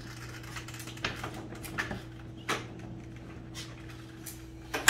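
Small dogs' claws tapping and scrabbling on the floor in scattered clicks, with a sharper knock near the end, over a steady low hum.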